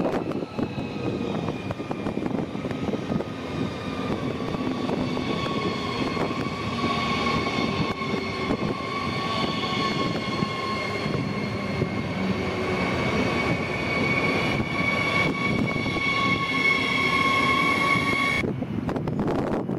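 Electric multiple unit moving past along the platform: a rumble of wheels on rails under a steady, several-toned whine from its electric traction motors, which drifts slightly in pitch and cuts off abruptly near the end.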